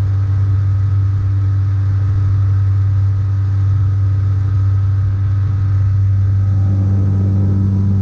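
Small boat's motor running steadily at constant speed, a low, even hum; a second, higher tone joins near the end.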